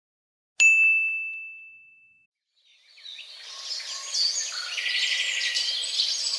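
A single bright ding that rings on one clear tone and fades away over about a second and a half. A second or so later a dense chorus of birds chirping fades in and carries on.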